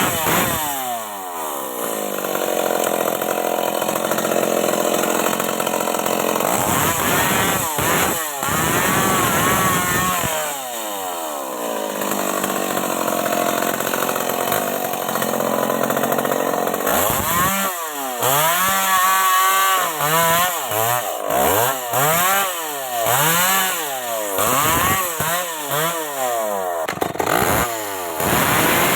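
Stihl MS 381 two-stroke chainsaw revving up and held at high revs, dropping back once in between. Over the last ten seconds or so it is revved up and down in quick bursts about once a second.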